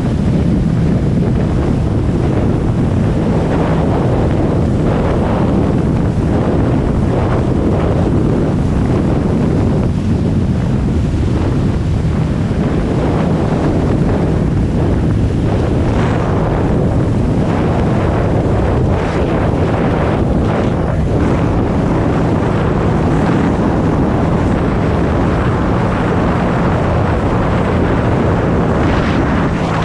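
Jet ski under way: heavy wind buffeting on the microphone over the engine's steady drone and water rushing past the hull.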